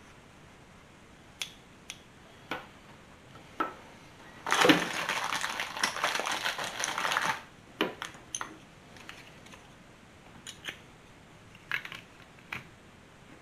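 A few sharp clicks and clacks from a glass bottle and a plastic wing capper being handled, with a dense rustling hiss for about three seconds in the middle.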